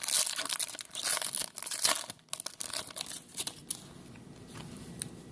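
Foil trading-card pack wrapper crinkling and tearing as it is pulled open by hand, with dense crackling for about the first three and a half seconds, then settling to quieter handling.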